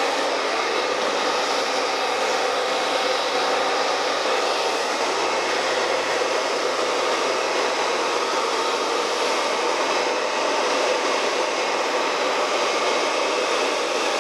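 Handheld hair dryer with a concentrator nozzle blowing steadily, as wet hair is blow-dried over a round brush.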